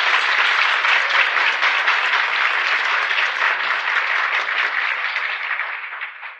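Large audience applauding in a mid-speech pause, the clapping tapering off near the end.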